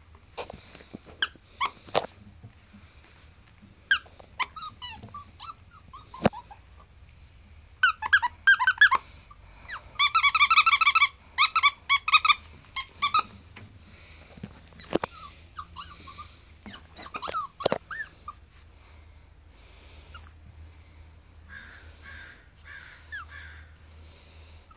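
A plush crocodile dog toy squeaking as a puppy chews and tugs it: scattered single squeaks, then quick runs of high squeaks about a third of the way in, and a few more later.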